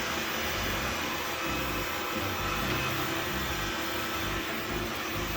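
Robotic vacuum cleaner running steadily.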